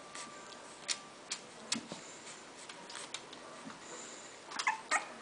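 Scattered sharp clicks and ticks as young English bulldog puppies crawl and nurse against their mother, then a few short high squeaks from a puppy near the end.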